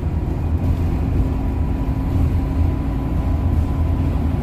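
Steady low rumble of a shuttle bus driving, engine and tyre noise heard from inside the cabin, with a faint steady whine over it.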